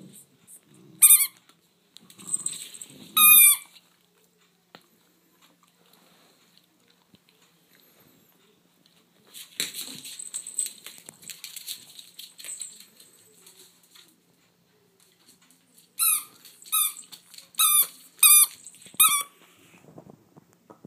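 A dog's squeaky toy squeaked by a toy poodle biting it: a short, high, falling squeak about a second in and another after three seconds, then a quick run of five squeaks near the end. In between there is a stretch of scuffling.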